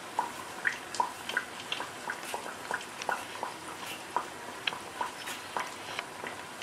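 Hot oil in an electric deep fryer crackling around pieces of boiled pork in the fry basket: irregular sharp pops, two or three a second, over a faint sizzle.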